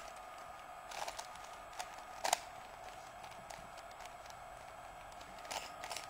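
Plastic Rubik's cube being turned by hand, its layers clicking and clacking in a few short sharp clicks, the loudest about two seconds in and more near the end, over a faint steady hiss.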